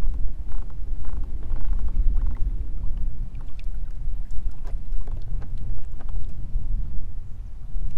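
Wind buffeting the microphone with a steady low rumble, over water lapping against a kayak hull, with a few faint clicks.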